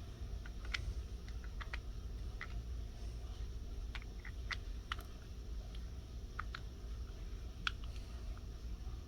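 Plastic Lego pieces clicking irregularly as they are handled and snapped together, over a low steady hum.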